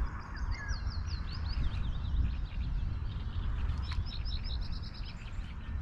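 Small songbird singing: a run of quick chirps in the first couple of seconds, then a fast trill about four seconds in. A steady low rumble runs underneath, and there is a single sharp tick about four seconds in.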